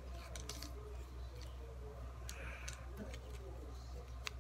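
Cardboard jigsaw puzzle pieces being picked up, slid and set down on a table: scattered light clicks and taps at irregular moments, the sharpest near the end, over a steady low hum.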